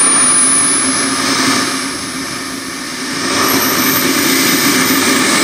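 Radio-controlled model jet's small turbine engine running, a loud rushing roar with a thin high whine that slowly rises in pitch as it spools up. The roar eases a little about two seconds in and builds again a second later.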